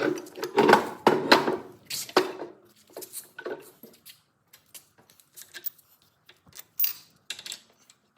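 Metal tools and parts being handled at a workbench: irregular clinks, clatters and knocks, busiest in the first two seconds, then scattered taps.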